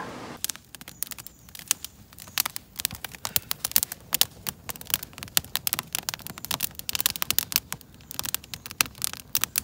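Wood campfire of split logs crackling, with rapid, irregular pops and snaps starting about half a second in.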